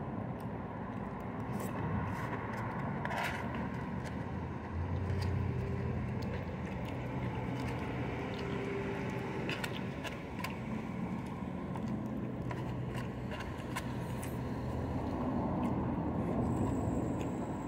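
Steady hum of nearby street traffic, with scattered light clicks and scrapes of a plastic fork against a takeout container.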